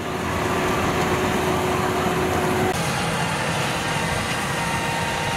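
Rice combine harvesters running steadily while cutting rice: a continuous engine and machinery drone with a constant whine. About halfway in, the sound changes abruptly to a second, closer combine with a higher whine.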